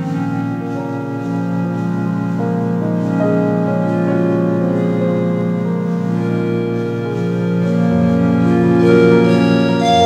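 Ambient keyboard music: slow, sustained organ-like synthesizer chords, the notes held and shifting every second or so, with no percussion.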